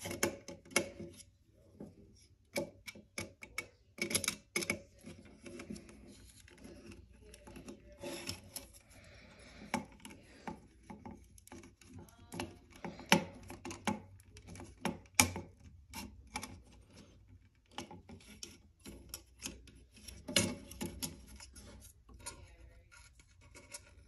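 A small screwdriver turning and scraping on the metal terminal screws of a plastic smoke-detector base as wires are fastened under them, giving irregular clicks, taps and rubbing scrapes.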